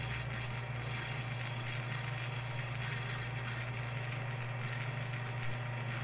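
Lathe of a Shoptask lathe-mill combo running steadily with a constant low motor hum, while a small bronze packing gland is parted off from bar stock.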